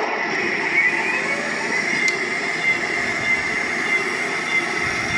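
Heng Long Tiger 1 RC tank running during a turret function test: a steady, loud mechanical whine and rumble with no breaks.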